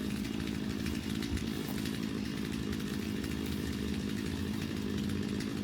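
Chainsaw engine running steadily at an even speed, with no cutting or revving.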